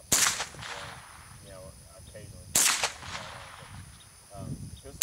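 Colt Stagecoach .22 LR semi-automatic rifle fired twice, the shots about two and a half seconds apart, each a sharp crack that trails off briefly.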